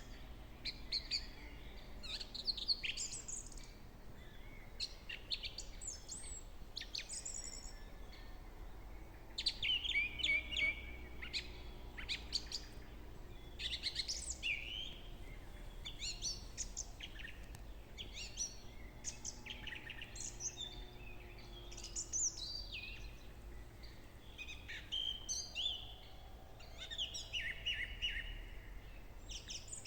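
Songbirds singing: many short, high chirps and trills, several overlapping at once.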